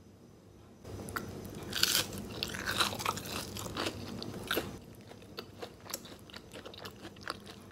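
Crunchy biting and chewing of a breadcrumb-coated fried cheese potato ball, starting about a second in. The sharpest crunches fall in the first few seconds; after that the chewing is softer.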